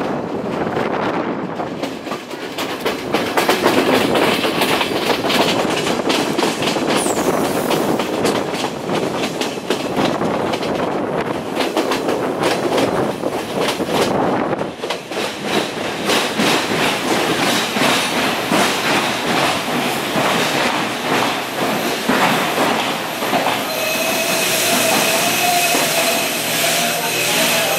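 Passenger train running along a station platform, heard from an open carriage door: wheels clattering over the rails in repeated clicks, with a steady squeal joining in near the end.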